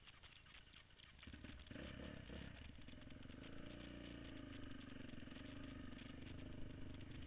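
An ATV engine comes up on the throttle about a second and a half in, then runs steadily as the four-wheeler rides along a dirt trail. Before that there is only a faint scratchy crackle.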